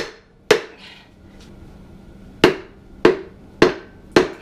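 Sharp wooden knocks on metal as a length of wood is pounded down against a connecting rod to drive a piston out of a Ford 460 V8 block's cylinder bore. There are two knocks, a pause of about two seconds, then four more about half a second apart.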